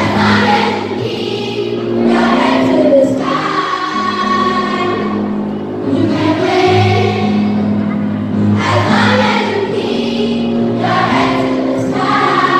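Children's choir singing a gospel song over an instrumental backing track with held bass notes.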